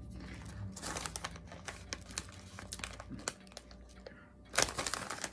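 Crisp, irregular crackling and clicking of puffed fried seaweed chips being chewed, with a louder burst of crackle a little before the end.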